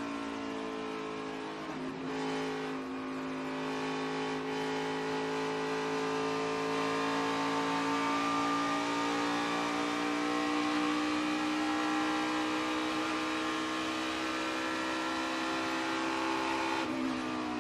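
NASCAR Xfinity Series race car's V8 engine at racing speed, heard onboard. Its pitch climbs slowly down the straightaway, with a brief dip about two seconds in and another near the end as the car reaches the turn.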